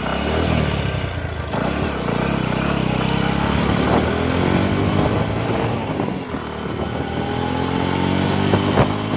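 Single-cylinder four-stroke engine of a Bajaj Discover motorcycle, converted to run on LPG, running under way; its note climbs twice as it accelerates.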